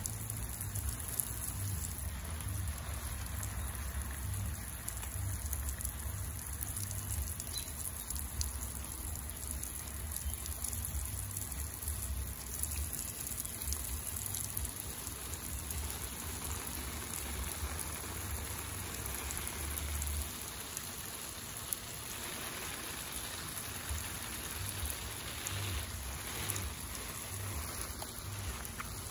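Steady hiss and patter of water falling on garden leaves and soil, with a low rumble underneath that drops away about two-thirds of the way through.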